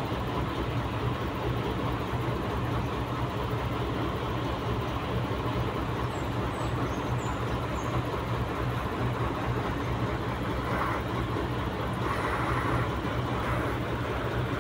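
Truck engine running steadily as it powers the truck-mounted UNIC crane lifting a crated air conditioning unit. A constant low hum with no revving or pauses.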